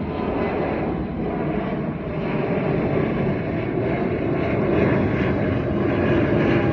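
Jet airliner, an Airbus A320-family Spirit Airlines jet, passing low and close overhead: a steady jet-engine rumble and rush growing louder.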